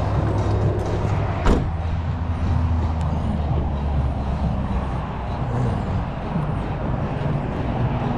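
A motor vehicle engine running nearby: a steady low hum that eases off about halfway through. One sharp click comes about a second and a half in.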